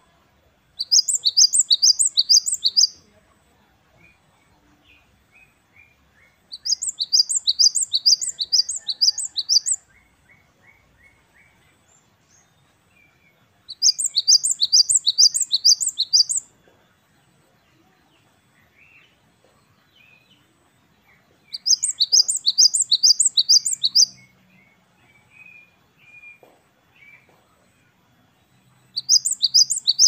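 Great tit (gelatik batu) singing its 'wucit-wucit' song. It comes in bouts of two to three seconds, each a fast run of high, sweeping notes, repeated about every six to seven seconds: four full bouts, and a fifth starting near the end. Fainter chirping can be heard between the bouts.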